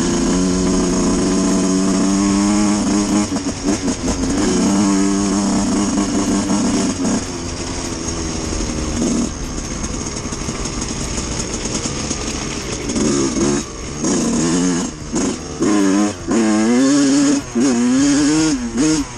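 Suzuki RM125 two-stroke dirt bike engine under way: it holds a steady pitch for several seconds and eases off, then from about two-thirds of the way in revs up and down repeatedly as the throttle is opened and shut.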